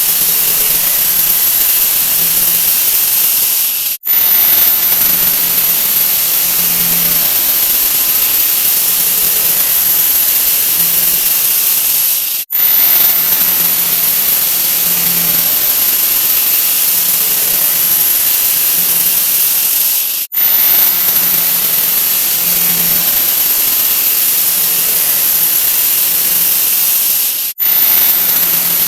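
A 'wah wah' sound effect sped up so far that it has become a loud, continuous hiss with no tune left in it. It drops out briefly four times, about every eight seconds.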